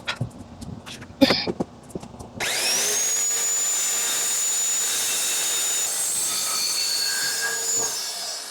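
Corded circular saw switched on about two and a half seconds in: its motor whine rises quickly to full speed and runs steady as the blade cuts through a strip of wood, then winds down near the end. Before it starts, a few light handling clicks.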